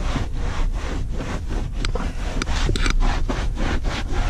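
A cleaning cloth rubbing back and forth over a car's interior trim, wiping off a spray-on cleaner, in even strokes about four a second over a steady low rumble.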